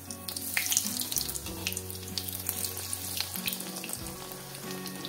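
Besan-battered bread slice deep-frying in hot oil in a kadhai: a dense crackling sizzle, loudest about a second in.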